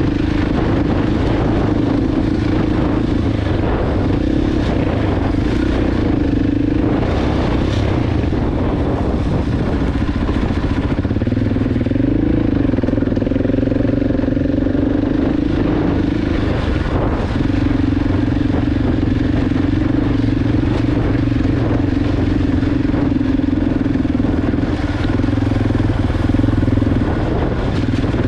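KTM 690 Enduro R's single-cylinder four-stroke engine running steadily under way on a dirt track. The engine note briefly drops and rises again about twelve seconds in.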